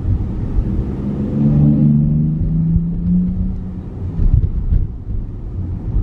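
Low road and tyre rumble inside a Tesla's cabin at slow town speed. A low engine drone from another vehicle swells about a second in and fades out after about three and a half seconds.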